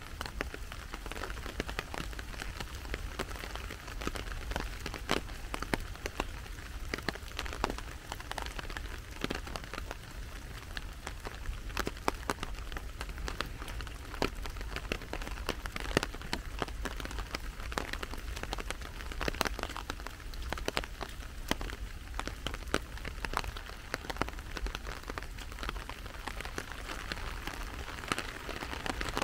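Steady rain falling, with many individual drops ticking close by at irregular moments.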